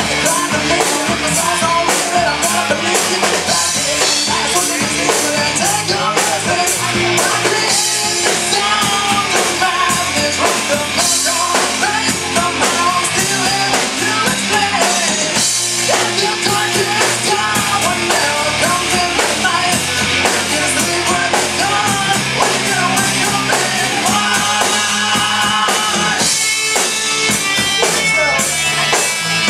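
Loud rock music: a band playing with a drum kit and a singer.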